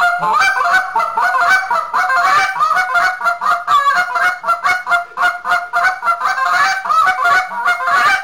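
Hand-blown short-reed goose call played in a rapid, continuous run of triple clucks, each note breaking sharply from a low tone to a high one, several notes a second.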